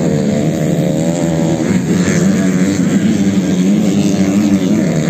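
250 cc motocross bike engines revving as they race on a dirt track. Their pitch rises and falls, with more than one engine overlapping.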